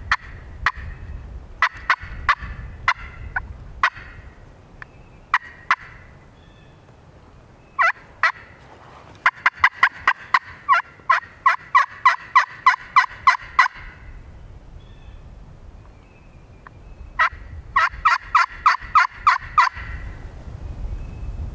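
Hen turkey yelps played on a glass friction (pot-and-striker) turkey call: a few single yelps at first, then a fast run of about twenty sharp notes, a pause, and a shorter run near the end. This is a hunter calling to a gobbling tom.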